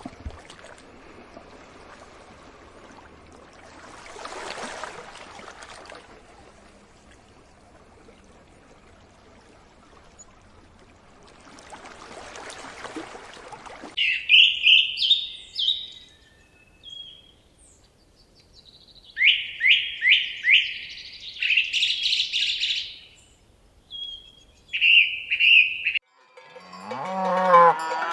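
Faint outdoor hiss that swells twice, then a bird calling in quick series of short, high chirps from about halfway through. Near the end a cow starts to moo.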